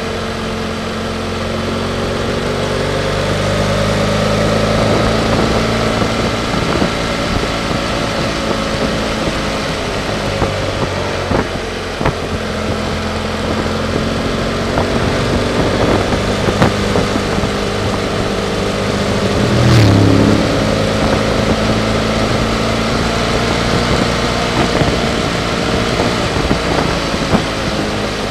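BMW F800GS parallel-twin engine running under way, its pitch rising and falling as the throttle changes, over steady wind and road noise. About twenty seconds in there is a brief louder moment that drops in pitch.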